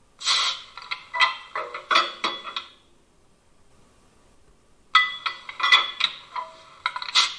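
ESU LokSound 5L sound decoder in a 1:32 model of the E 71 electric locomotive playing its coupling and uncoupling sounds through the model's loudspeaker. There are two runs of metallic clanks and clinks, each about two and a half seconds long, with a pause of about two seconds between them.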